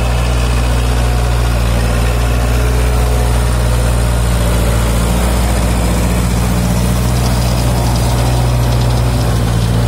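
Kubota MU4501 tractor's four-cylinder diesel engine running steadily under load, driving a Maschio rotavator that puddles a flooded paddy field, with water and mud churning around the wheels and blades.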